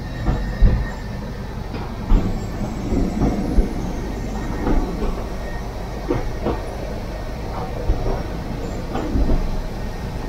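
Ford Model T rail car running along the track, heard from inside its wooden cab: a steady rumble from its small four-cylinder side-valve engine and running gear, with irregular knocks and rattles as it rolls over the rails.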